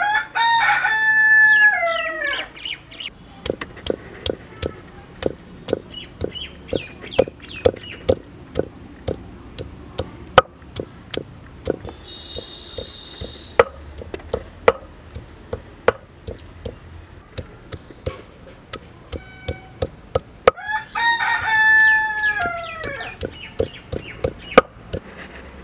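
A rooster crows twice, once at the start and again about twenty seconds in, each a long call that falls away at the end. Between and under the crows, a stone roller strikes a flat grinding stone in a steady run of sharp knocks, about two a second, crushing garlic cloves and ginger.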